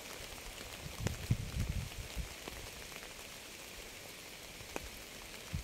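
Rain falling steadily, with separate drops ticking now and then and a few low thuds about a second in.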